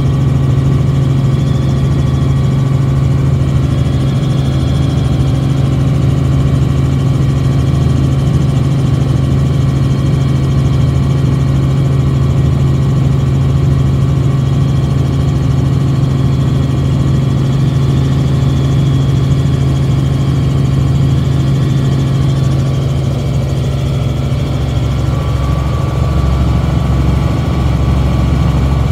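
Helicopter cabin noise in flight: a loud, steady drone of engine and rotor heard from inside the cabin.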